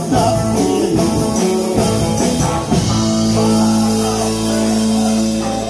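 A live rock band plays with electric guitars and a drum kit. About halfway through, the band settles into one long held chord.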